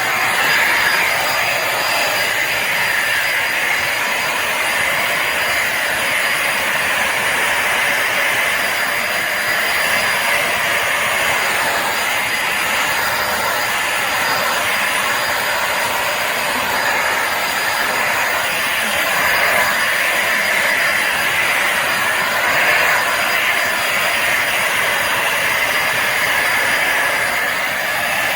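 Bissell Symphony Pet vacuum and steam mop running steadily: a constant motor whine and rush of suction air, with a faint high tone over it.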